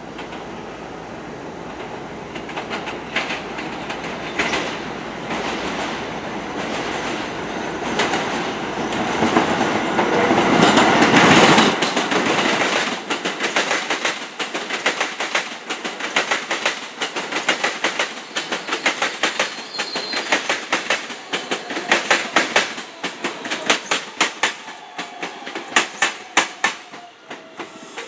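New York City subway trains passing at close range: a rumble builds to a peak about eleven seconds in, then the wheels clack over rail joints in a long rapid run, the clacks coming louder and more spaced out in the last few seconds.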